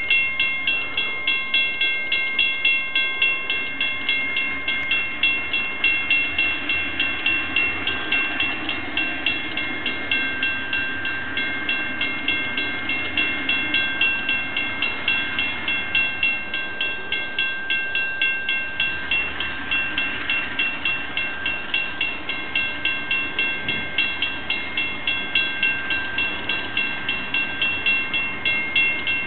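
Railroad crossing bell ringing steadily, about two strikes a second, sounding the warning that a train is approaching the crossing.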